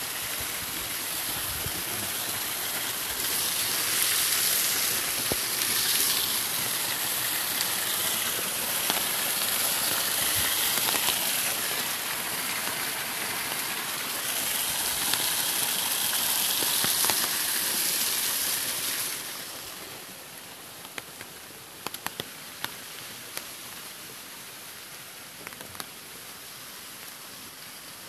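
Small waterfall rushing steadily. About two-thirds of the way through it falls to a quieter, steady hiss, with a few light ticks after that.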